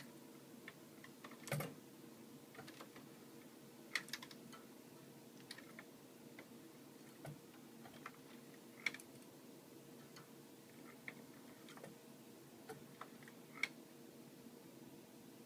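Light metallic clicks and ticks at irregular intervals from a bolted perforated-metal-strip frame, part of a homemade Nitinol heat engine, being moved and shifted by hand. A faint steady hum runs underneath.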